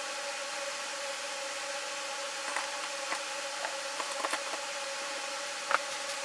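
Steady background hum and hiss, with a few light clicks and taps about midway and one sharper click near the end.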